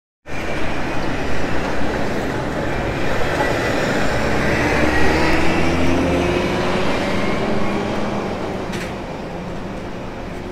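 A large vehicle, most likely a train, running: a steady rumble and hiss with a whining tone that rises and falls, easing off over the last few seconds.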